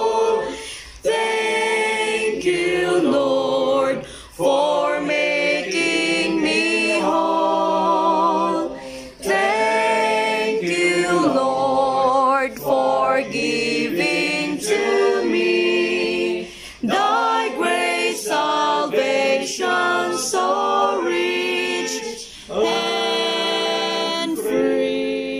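A group singing a worship song without accompaniment, in sung phrases with short pauses between them.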